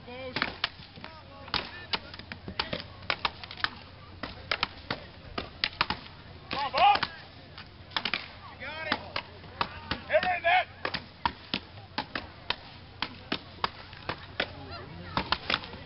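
An axe chopping into an upright block of wood in a standing-chop event: a long series of sharp axe strikes, one to two a second.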